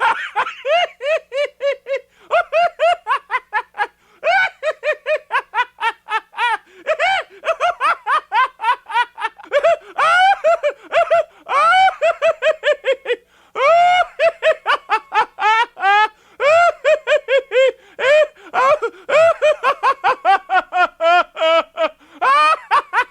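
A person's maniacal laughter, a horror sound effect: long unbroken strings of fast high-pitched "ha-ha" pulses, about five a second, swooping up and down in pitch, with only short breaths between runs.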